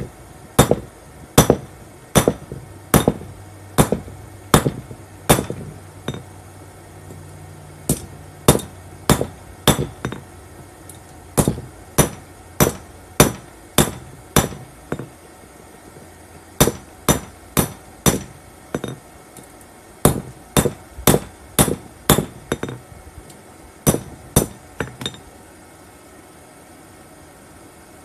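Hand hammer striking red-hot coil-spring steel on a round steel anvil block. The blows come in runs of several, at about one to two a second with short pauses between runs, and each one gives a short metallic ring. The hammering stops near the end.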